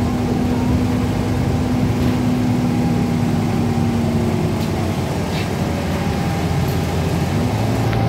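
Cabin noise inside a moving 2012 30-foot Gillig Advantage Low Floor transit bus: the steady drone of its engine and drivetrain mixed with road noise, with a low hum held through the first half and a few light rattles.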